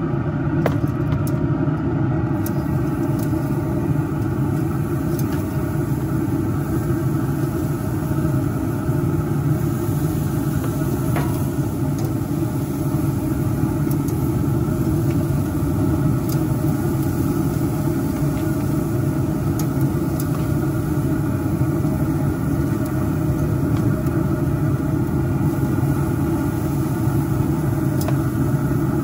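Traeger Ironwood 650 pellet grill running with its lid open, its fan giving a loud, steady low hum. Faint clicks of metal tongs on the grate come now and then as wings are laid on.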